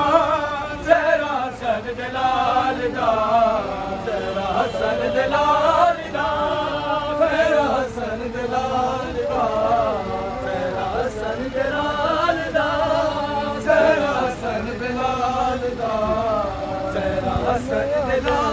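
Men's voices chanting a noha, a Shia mourning lament, in a continuous melodic chant.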